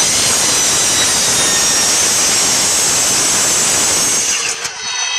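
Ryobi 10-inch miter saw cutting through 1/4-inch-thick aluminum angle: a loud, steady, high-pitched cutting noise. Near the end the cut finishes and the blade runs free with a ringing whine that fades as it winds down.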